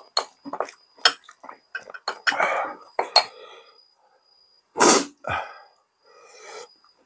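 Eating sounds: utensils clicking and knocking against bowls and dishes, with short breathy exhalations, and one loud throaty burst like a cough about five seconds in.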